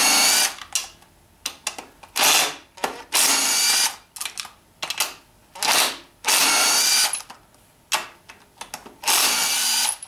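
Small impact gun run in six short bursts with a motor whine, spinning bedplate bolts out of a BMW N54 engine block.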